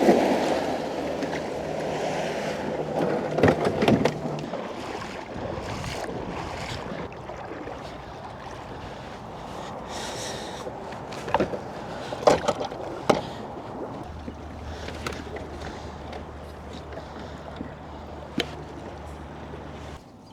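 Kayak on the water: water washing and splashing around the hull, loudest at first, with a few sharp knocks of gear or paddle against the kayak. A faint steady low hum sets in about two-thirds of the way through.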